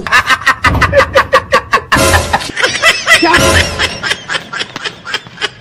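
Rapid laughter in quick repeated bursts, about seven a second, with music behind it.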